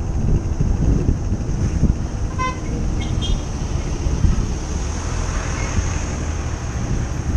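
Wind buffeting the microphone on a moving motorbike, over road and engine noise. A short horn toot comes about two and a half seconds in.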